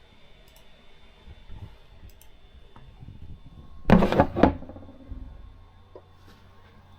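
Handling noise: a brief clatter of clicks and knocks about four seconds in, over a faint steady high-pitched electronic tone.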